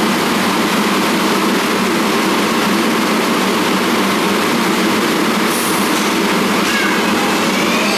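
R188 subway train standing at the platform with a loud, steady running noise. A short high hiss about five and a half seconds in, then a faint rising electric whine near the end as the train starts to pull out.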